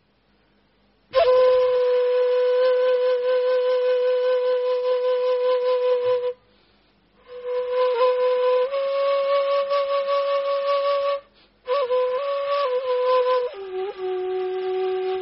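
Flute-like wind instrument playing long, breathy held notes in three phrases with short breaks between them; the pitch steps up a little in the middle phrase and drops lower near the end.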